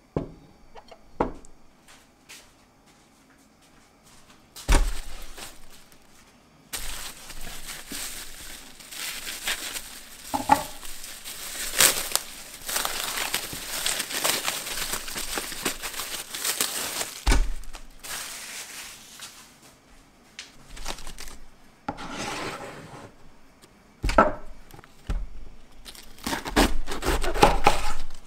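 Plastic film wrapped tightly around a head of iceberg lettuce crinkling and rustling as hands handle and unwrap it, with a couple of sharp knocks on the wooden table. Near the end, crisp crunching as a knife cuts through the lettuce.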